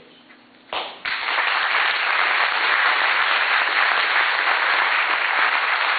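Audience applauding. The applause starts abruptly about a second in after a brief hush and holds steady.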